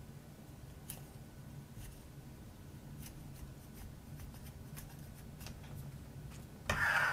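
A knife blade whittling soft pine knife-handle scales: faint, scattered short scraping cuts as shavings come off, with one louder rasping scrape near the end.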